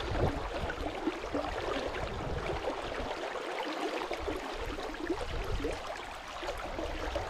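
Steady rushing of a river's fast current running over a shallow riffle.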